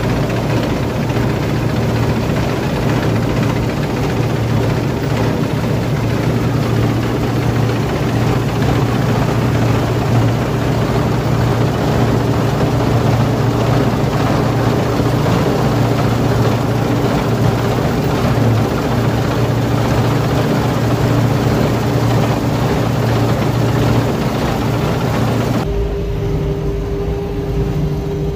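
Claas Dominator 48S combine harvester running steadily under load while harvesting wheat: a constant diesel drone mixed with the rushing noise of the threshing machinery. Near the end the sound switches abruptly to a lower rumble with a steady hum.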